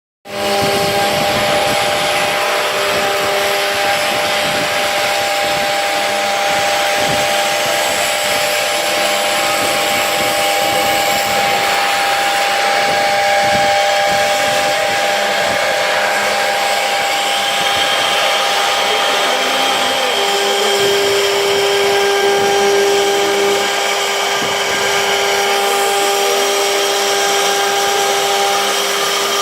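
CNC router running: a steady motor whine over a loud hiss, with a lower tone cutting in and out.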